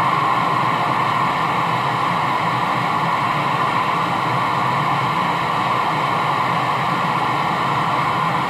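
CB radio speaker giving out a steady rushing hiss of static, with an incoming station keyed up but not talking, so its signal holds the receiver open.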